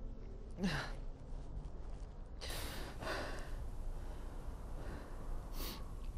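A man breathing out heavily three times: a short sigh with a falling tone about half a second in, a longer exhale around two and a half seconds, and a brief breath near the end, over a steady low room hum.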